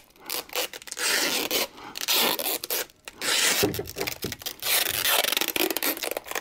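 Clear sticky tape being pulled off the roll in a series of short, uneven pulls and wrapped around the neck of a rubber hot-water bottle, the tape rubbing on the rubber.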